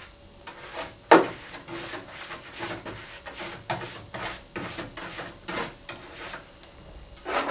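A hand brush scrubbing the plastic casing of a CRT computer monitor in short, repeated rasping strokes, with a sharp knock about a second in.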